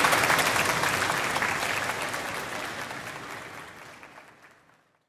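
Audience applauding, a dense patter of many hands clapping that fades steadily away until it is gone near the end.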